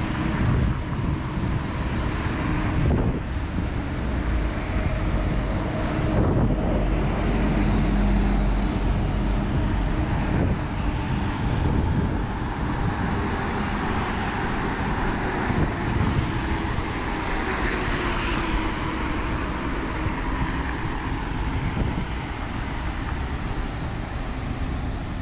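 Wind buffeting the microphone over steady traffic noise, with cars passing on a wet bridge road.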